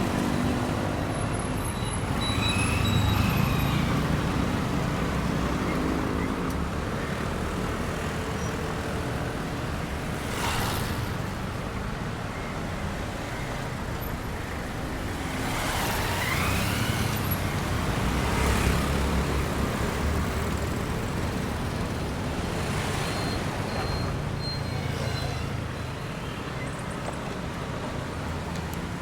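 Road traffic: a steady rumble of car and truck engines, with several vehicles passing one after another.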